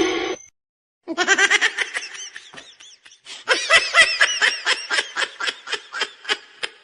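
A person laughing in two bouts of rapid, repeated pulses, the second bout longer, the pulses coming about four a second.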